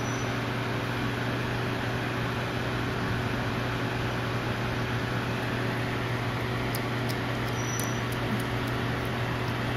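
Steady machine hum with an even hiss, unchanging throughout, and a few faint ticks about seven to eight seconds in.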